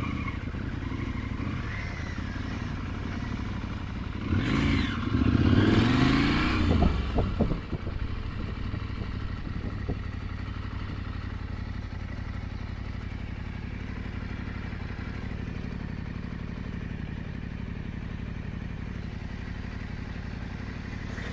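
KTM 890 Adventure R parallel-twin engine idling steadily, with a short stretch of revs rising and falling about four to seven seconds in as the bike is moved.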